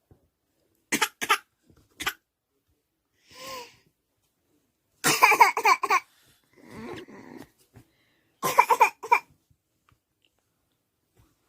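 Coughing in short bursts from a grandmother and a baby, the baby mimicking her cough. There are two quick coughs about a second in and a longer run of rapid coughs around five seconds in and again around eight and a half seconds in, with softer voice sounds between.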